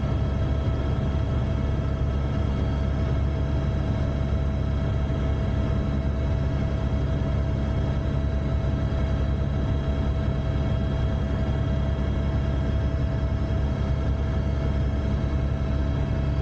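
AS350 helicopter in flight: a steady, unbroken rumble from the rotor and single turbine engine, with a constant whine above it.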